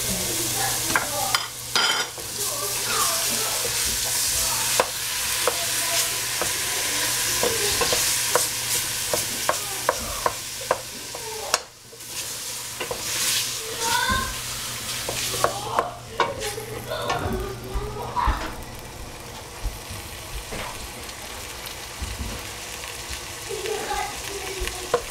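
Sizzling in a hot pan, with a cooking utensil scraping and clicking against the pan as it is stirred. The sizzle is louder for the first twelve seconds or so, then settles quieter.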